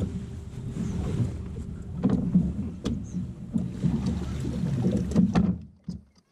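Wind rumbling on the microphone on a boat's open front deck, with several knocks and clunks as the bow-mount trolling motor is lifted out of the water and stowed. The sound drops away suddenly near the end.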